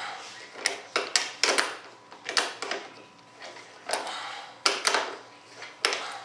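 Irregular clicks and clinks of small parts and a hand tool being handled on a workbench: about a dozen sharp ticks and knocks, some in quick pairs, with quiet gaps between.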